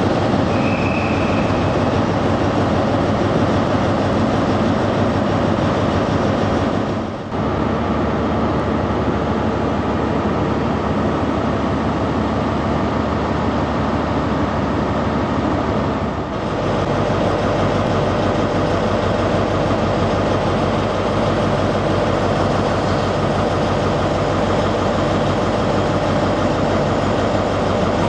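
Class 43 HST power car's MTU V16 diesel engine idling steadily while the train stands at the platform, a constant low hum under an even mechanical din.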